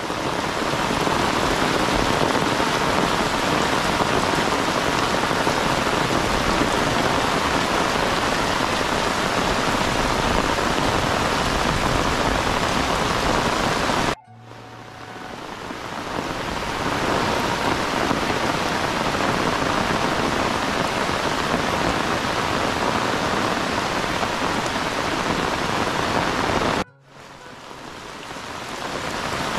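Heavy rain falling steadily on tiled roofs and a waterlogged yard. The sound breaks off suddenly twice, about halfway through and near the end, and each time comes back in over a second or two.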